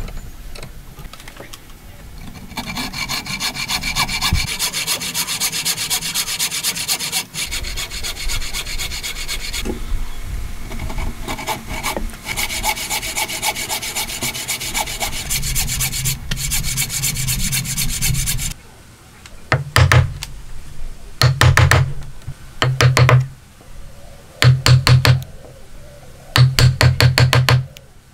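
Fine-toothed hand saw cutting across a hardwood beam in quick, continuous back-and-forth strokes, then five separate one-second bursts of sawing about a second and a half apart.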